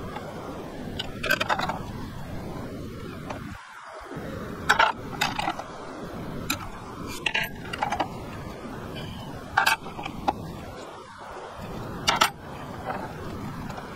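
Hard objects being handled: about ten sharp clinks and knocks at uneven intervals over a steady background hiss.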